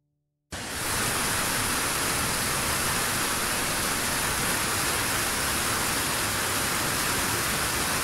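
Waterfall rushing: a loud, steady, even hiss of falling water, strongest in the high end, that starts abruptly about half a second in.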